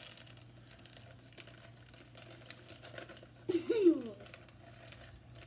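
A plastic zip-top bag crinkling as beeswax pellets are shaken out of it into a metal pouring pitcher, with light scattered ticks of falling pellets. About three and a half seconds in, the child gives a short vocal exclamation that falls in pitch.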